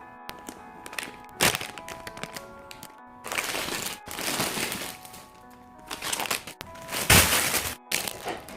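Plastic packaging being handled and opened: crinkling and rustling in several bursts with a few sharp cracks, the loudest about a second and a half in and around seven seconds in, over background music.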